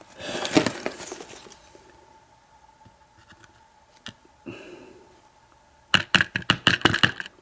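Small metal lock parts being handled while a padlock core is emptied of its pin tumblers: rustling and scraping at first, a lone click a few seconds in, then a fast run of about a dozen sharp metallic clicks and taps near the end.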